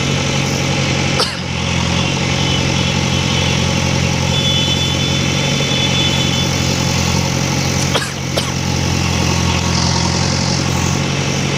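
Diesel engine of a JCB backhoe loader running steadily during demolition, with two sharp knocks, one about a second in and one about eight seconds in, and a brief faint high squeal midway.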